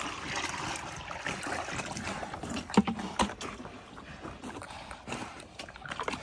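Pigs slurping and sloshing whey in a wooden log trough as it is poured in from a bucket, with two sharp knocks about three seconds in.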